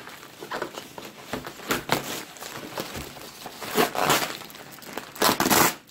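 Packaging being unwrapped by hand: irregular rustling and crinkling of wrapping, with the loudest bursts about four seconds in and near the end.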